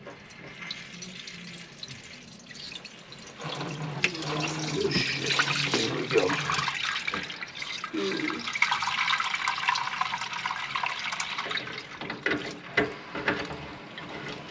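Standing water from a kitchen sink drain line clogged with grease, running out of the slowly opened pipe into a shallow pan. It starts faint and grows into a steady louder pour about three and a half seconds in.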